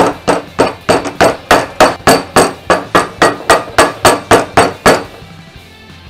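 Hammer tapping a new dust seal into a Toyota Tacoma front steering knuckle through a shop towel laid over it: some seventeen sharp blows at about three a second, stopping about five seconds in.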